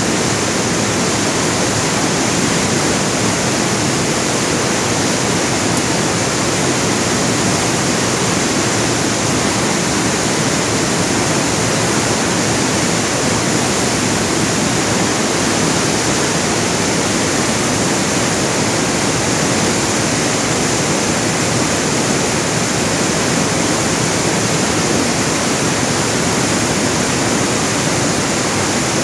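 Steady, unbroken rush of flowing water, like a fast stream or rapids.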